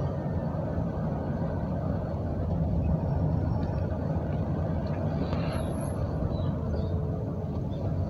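Chevrolet Astro van driving along, its engine and road noise making a steady low drone inside the cabin.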